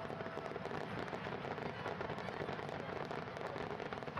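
Fireworks crackling: a dense, steady stream of many small pops and crackles, with no single large boom standing out.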